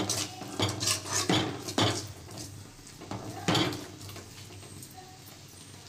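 A spoon scraping and knocking against an aluminium pot as thick masala paste is stirred and sautéed: several quick strokes in the first two seconds, one more about three and a half seconds in.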